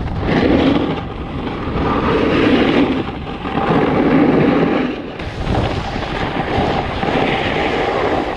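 Snowboard sliding and scraping over icy snow, with wind rushing over the camera microphone, swelling and easing every second or two as the rider turns.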